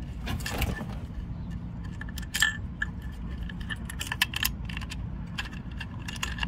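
Light metallic clicks and clinks of a steel Romex cable connector and its locknut knocking against the fan motor's metal electrical box as they are worked by hand to start the thread. The clicks come at irregular intervals and bunch up in the second half.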